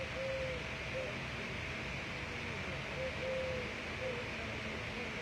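Small kittens mewing: several short, thin calls that rise and fall in pitch, coming every second or so, over a steady background hiss.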